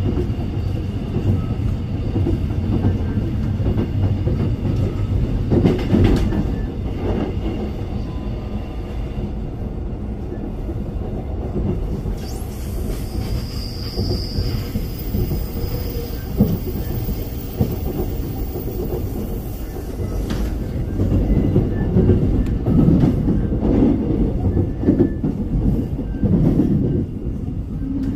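Seoul Subway Line 2 electric train running on its rails, heard from inside the car: a steady low rumble of wheels on track with occasional clacks. A high-pitched whine runs through the middle stretch.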